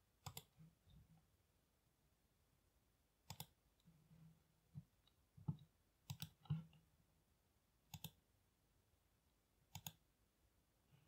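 Computer mouse clicking, mostly in quick double clicks every one to three seconds, while a symbol is placed and a wire drawn in a schematic editor.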